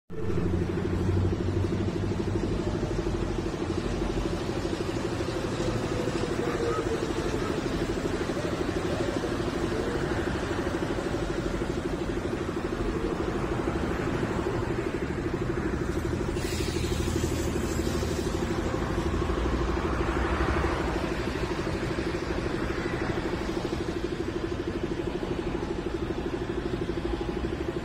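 Steady rumble of road traffic on a busy city avenue, with a constant low hum and cars passing. About sixteen seconds in there is a brief high whine that falls in pitch.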